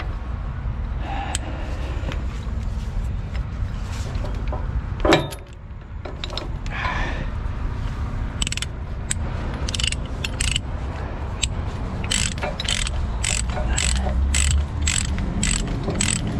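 Ratchet chain binder being cranked to tighten a tie-down chain on the dozer, its pawl clicking about twice a second from about halfway through. A sharp knock comes about five seconds in, and a low steady rumble runs underneath.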